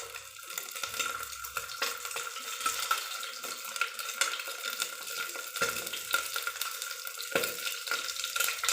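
Cut boiled eggs sizzling and crackling in hot oil in a pressure cooker pan, with a couple of sharp utensil knocks in the second half.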